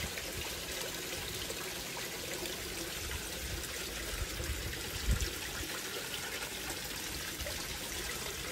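Steady trickle of running water in a koi pond, with a brief low thump about five seconds in.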